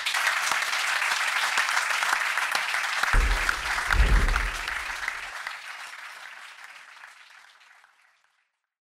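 Audience applauding in a function room, steady at first and then fading away to nothing over the last few seconds. A deep rumble comes in about three seconds in and lasts about two seconds.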